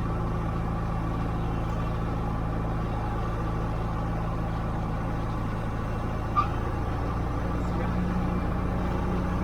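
Cessna 150's four-cylinder Continental engine and propeller droning steadily, heard from inside the cabin. There is a single short click about six and a half seconds in, and the engine note grows slightly stronger near the end.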